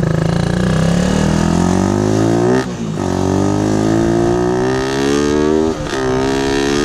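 Suzuki Raider 150 motorcycle with a big-elbow exhaust header accelerating through the gears: the revs climb, drop sharply at a shift about two and a half seconds in and again near six seconds, then climb again.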